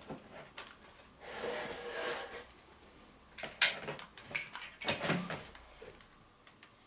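Soft clicks and rustles from a tabby kitten licking and nuzzling the faux-fur cushion it lies on, with a longer rustle early on and a run of sharper clicks after the middle.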